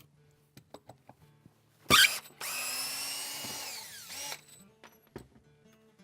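Power drill run for about two seconds with a steady motor whine that winds down in pitch as it coasts to a stop, just after a loud sudden burst of noise. Scattered light clicks of handled tools.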